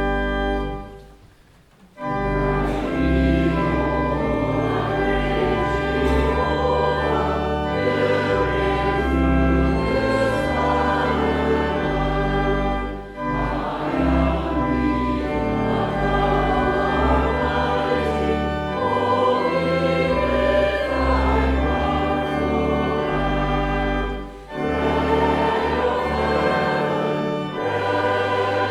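A held organ chord fades out about a second in. Then a choir starts singing a hymn with organ accompaniment, with brief pauses between phrases.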